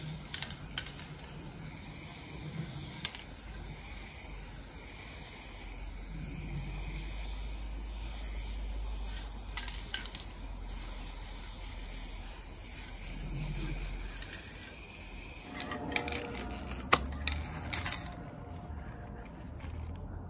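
Aerosol spray paint can hissing steadily as paint is sprayed onto the metal barrel of a barbecue grill. The hiss stops about three-quarters of the way through, followed by a few sharp knocks and clicks.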